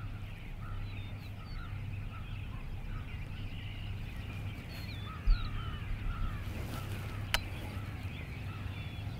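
Many short, repeated bird calls over a low steady hum. A single low thump comes about five seconds in, and a sharp click follows about two seconds later.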